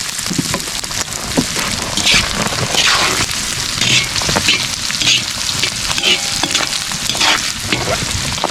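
Meat searing in hot oil in a large pan over a wood fire, sizzling steadily with louder hissing surges every second or so.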